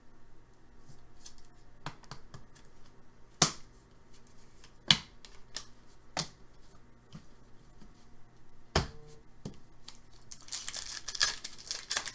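A few scattered taps and clicks as cards and packs are handled. Then, about ten seconds in, a dense crinkling and tearing as a foil trading-card pack wrapper is ripped open.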